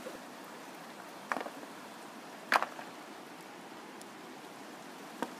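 Shallow rocky river flowing steadily, with two short sharp knocks about a second and two and a half seconds in and a fainter one near the end.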